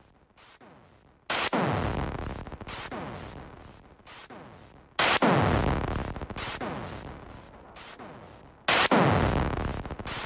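Electronic music intro: three sudden synthesized noise swells, about a second in, near the middle and near the end, each sweeping down in pitch as it fades, with a chopped, flickering texture.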